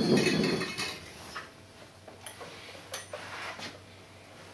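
Kitchen handling sounds: a soft rustle, then a few light clicks and knocks of a glass and dishes being set down and moved on a tiled counter. The sharpest knock comes about three seconds in.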